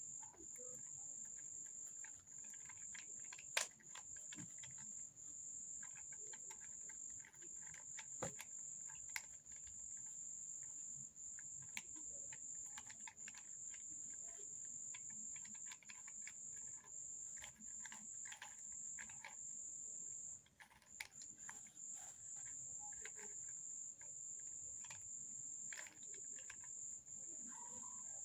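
Faint plastic clicks and clacks of a 3x3 Rubik's cube being twisted by hand, scattered irregularly, with a couple of sharper knocks in the first eight seconds. Under them runs a steady high-pitched insect trill that breaks off only briefly.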